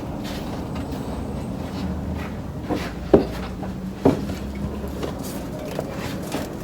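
A few sharp knocks and clatters while a rabbit cage is cleaned out, the two loudest about three and four seconds in, over a steady low hum.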